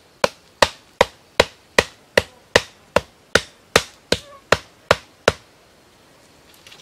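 Sharp wooden knocks: a steady run of about fifteen blows, roughly two and a half a second, struck on the top of an upright wooden plank held by hand. They stop a little over five seconds in.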